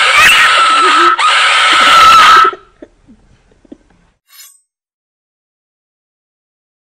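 A loud jump-scare scream sound effect, one sustained shriek lasting about two and a half seconds that cuts off abruptly.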